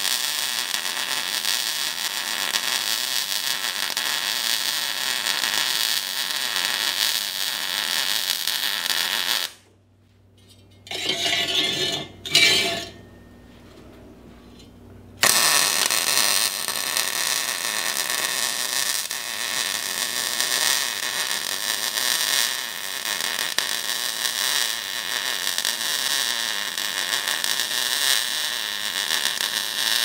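MIG welding arc on mild steel square tubing, running steadily with an even frying hiss as a bead is laid. The arc stops about nine seconds in, with two brief sounds during the pause, then strikes again about halfway through and runs on.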